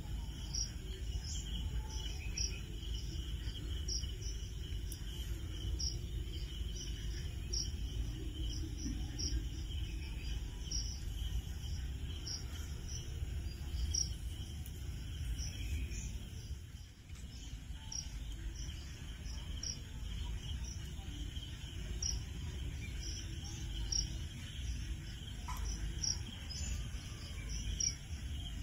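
Crickets chirping: short high chirps repeating irregularly, about one or two a second, over a steady high insect drone and a low rumble.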